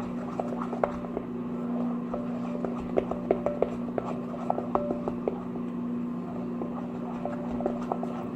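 Plastic paint bottle being squeezed and handled: scattered small clicks, taps and short squeaks over a steady low hum.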